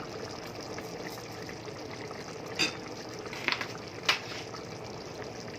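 Pot of peas, carrots and meat simmering in its broth on the stove, a steady bubbling, with three sharp clinks between about two and a half and four seconds in.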